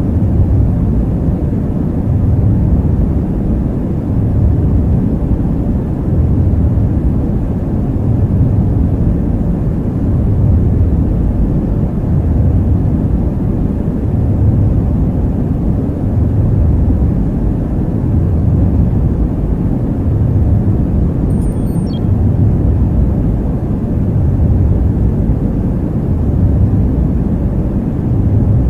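Deep, steady starship-engine rumble of the Halcyon cabin-window ambience, swelling and easing about every two seconds.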